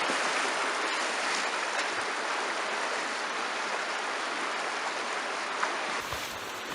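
Steady rushing of creek water. Near the end it cuts abruptly to a different, lower rushing sound.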